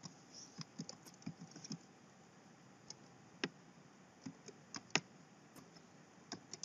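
Computer keyboard keys clicking faintly as a web address is typed, in irregular runs of keystrokes with short pauses between them.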